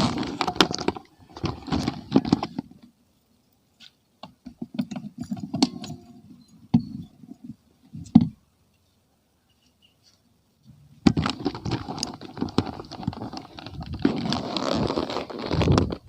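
Irregular clinks and rustling of small objects being handled, like keys jangling, broken by quiet gaps, with a denser stretch of rustling in the last few seconds.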